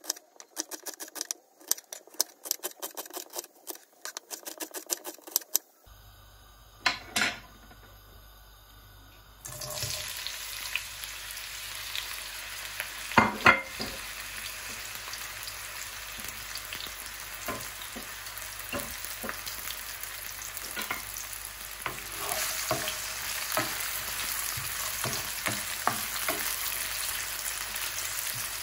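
A chef's knife chops an onion on a wooden cutting board in quick taps for the first few seconds. From about nine seconds in, sliced onions sizzle in oil in a frying pan with a steady hiss, while a wooden spoon stirs them with scattered scrapes and knocks. There are two loud knocks about thirteen seconds in, and the sizzle grows louder later on.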